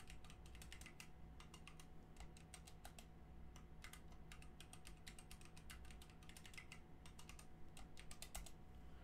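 Faint typing on a computer keyboard: quick runs of keystrokes as a password is entered and re-entered, with a short pause about three seconds in.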